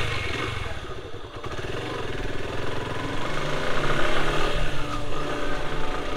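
Suzuki Gixxer 155's single-cylinder engine running as the motorcycle pulls away and rides at low speed, its pitch rising and falling with the throttle.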